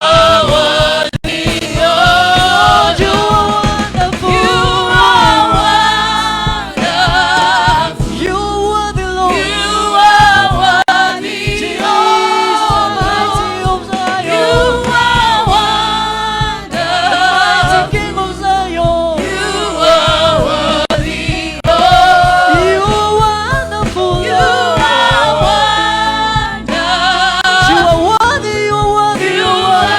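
Gospel worship song: several voices singing together over a continuous instrumental backing.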